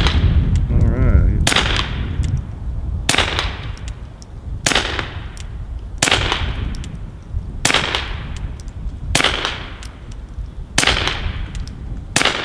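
Integrally suppressed Ruger Mark II .22 LR semi-auto pistol fired in a steady string, about one shot every second and a half. Each shot is a sharp crack with a short fading echo.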